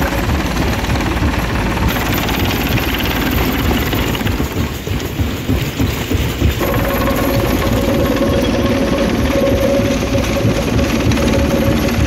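Rock crusher running and breaking stone: continuous rattling and knocking of rock being crushed over the machine's drone. The sound changes abruptly about two seconds in and again past the halfway point, after which a steady hum runs under the crushing.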